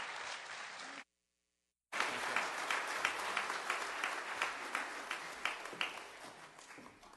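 Congregation applauding: a dense patter of hand claps that cuts out completely for about a second near the start, then resumes and dies away toward the end.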